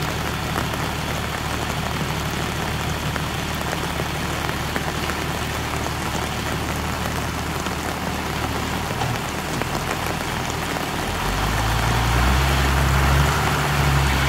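John Deere tractor's diesel engine running steadily, driving a PTO-mounted forage chopper, with rain falling. About eleven seconds in, the engine's low hum grows louder.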